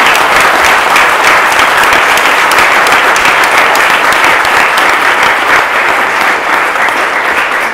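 An audience applauding steadily: many hands clapping at once, dying away just after the end.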